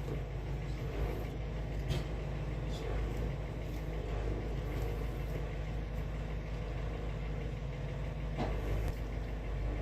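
Wood-Mizer portable band sawmill's engine running steadily, with a couple of faint knocks.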